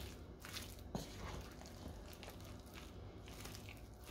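Spoon stirring a thick, wet boiled-fruit cake mixture of dried fruit, pineapple, flour and egg in a stainless steel saucepan: faint, irregular squelching with small clicks, and a slightly louder knock about a second in.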